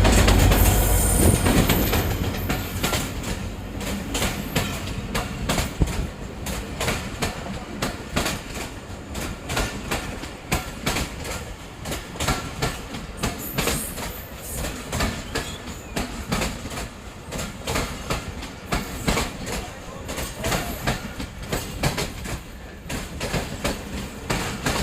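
A passenger train pulls into the station. The diesel locomotive passes with a loud low rumble in the first two seconds, then the coaches roll by with a steady clickety-clack of wheels over the rail joints.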